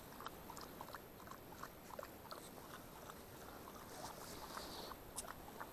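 A dog lapping water at the edge of a pond: faint, irregular small clicks and splashes.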